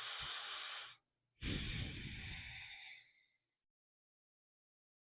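A person's deep breath in, lasting about a second, then a longer breath out like a sigh that fades away.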